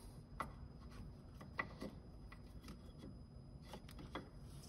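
Faint handling noise: a handful of scattered light clicks and small rubbing sounds, over a steady low hum.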